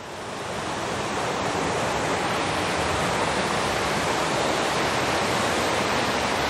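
A rocky brook running and splashing over stones and a small cascade: a steady rush of water that fades in over the first second.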